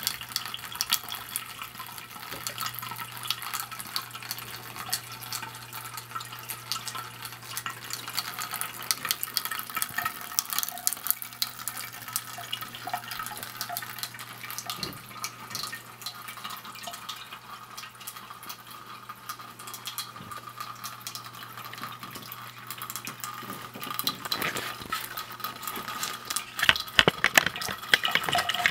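A thin stream of water from a homemade sink fountain trickles and splashes steadily into the basin as a constant patter of small drips. Under it runs a steady low hum that fades near the end, and the splashing grows louder in the last few seconds.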